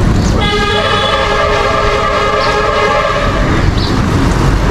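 A loud multi-tone horn blaring steadily for about three seconds, starting about half a second in, over a steady low rumble.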